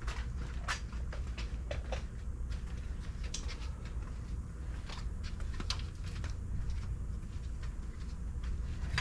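Scattered light clicks and taps of hand tools and bolt hardware being worked, over a steady low rumble.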